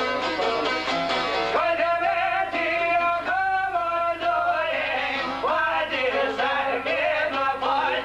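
Albanian folk song: a man sings long, wavering held notes that swoop up into pitch, over busy plucking on long-necked lutes (çifteli). The voice comes in about a second and a half in, after the lutes play alone.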